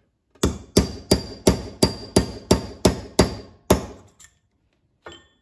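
A hammer strikes a 5/32 pin punch about ten times, roughly three blows a second, each with a short metallic ring, driving the cotter pin out of the shaft pin in a Ford 6F55 front differential. The pin is starting to come out.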